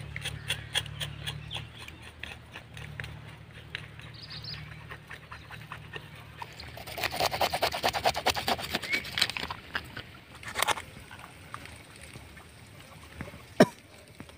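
Knife scraping the scales off a red pomfret: a fast run of rasping strokes in the middle, with scattered clicks before it and one sharp knock near the end.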